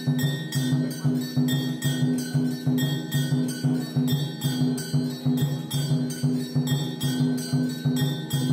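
Automatic temple bell-and-drum machine playing: brass bells clanging and a steel drum struck in a steady, fast, even rhythm.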